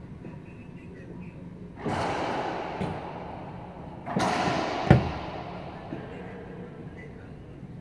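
A racquetball being struck hard inside an enclosed court. There are loud echoing hits about two seconds in and again about four seconds in, and a sharp crack just under a second after the second one is the loudest. Each hit trails off in the court's ringing echo.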